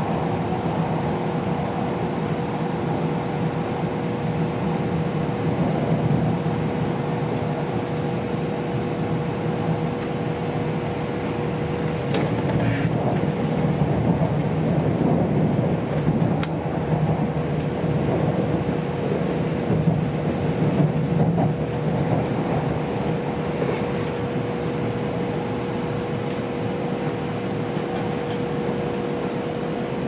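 Cabin noise inside an E2 series Shinkansen car: a steady rumble and hum with one constant tone running through it, and a few faint clicks.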